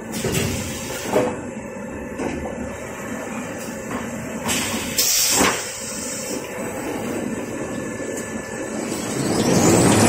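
Paper-embossing and laminating machine for kitchen towel and toilet rolls running: a steady noise of rollers and drives, with a few knocks and a short hiss about halfway. Near the end a rising whine comes in and the noise grows louder.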